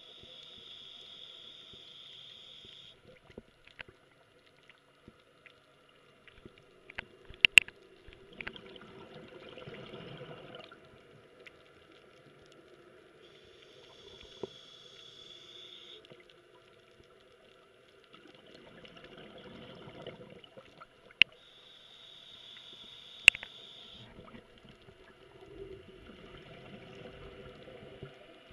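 Scuba diver breathing through a regulator underwater: long hissing inhalations, each followed by a rumbling rush of exhaled bubbles, three breaths in all. A few sharp clicks stand out, the loudest a pair about a third of the way in.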